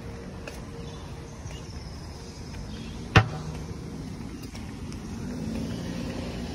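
Outdoor street ambience: a steady low rumble of road traffic with footsteps on the pavement, and one sharp knock about three seconds in.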